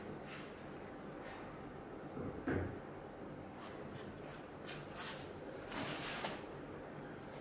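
Soft handling noises over a steady hiss: a dull knock about two and a half seconds in, then a few light taps and a brushing sound near the end as a finger touches the handheld CCTV tester's touchscreen.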